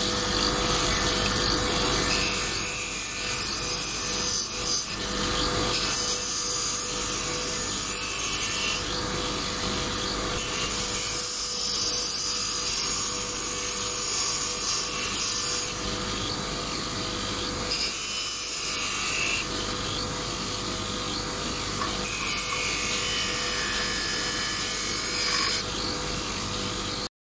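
Water running steadily out of a car radiator's bottom outlet as the radiator is flushed through, carrying out rust.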